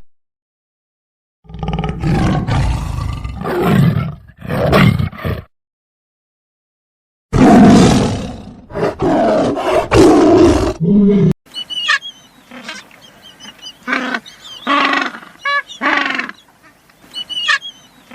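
Big cat roaring in two separate bouts, the second louder. A quieter stretch follows with high bird-like chirps over lower animal calls.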